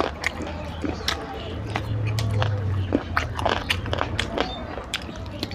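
Close-up mouth sounds of a person eating curry and rice: irregular wet chewing and lip-smacking clicks, with a steady low hum underneath.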